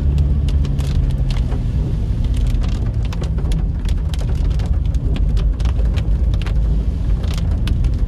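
Vehicle running: a steady low engine and road rumble, with a held low hum for the first couple of seconds, and many scattered sharp taps over it.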